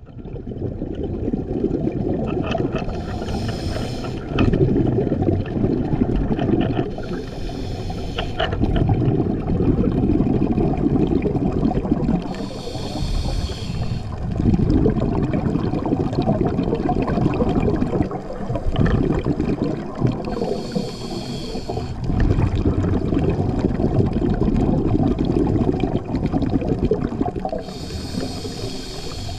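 Scuba diver breathing through a regulator underwater. There is a short hiss on each of five inhalations, several seconds apart, and low bubbling from the exhaled air between them.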